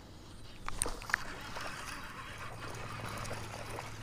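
Faint water trickling and lapping around a kayak, with a few sharp clicks and knocks about a second in.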